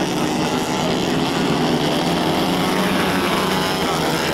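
Several 110cc kart engines racing by on track, a steady overlapping buzz whose pitches shift as the karts accelerate and lift.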